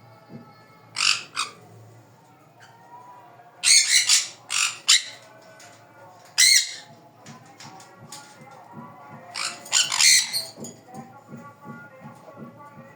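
Sun conures squawking: about a dozen short, harsh, loud squawks in clusters, with the loudest run around four and ten seconds in.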